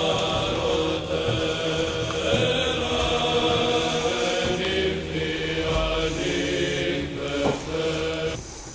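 Byzantine chant: slow sung voices holding long notes over a steady low tone, fading out near the end.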